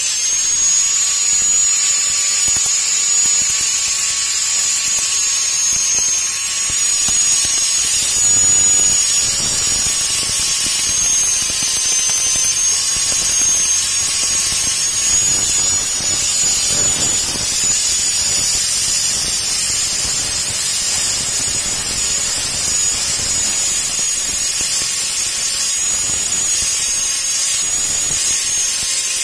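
Electric angle grinder running under load, its disc grinding the steel of a forklift's cracked tilt cylinder: a steady high whine that wavers slightly, over a continuous rasping grind.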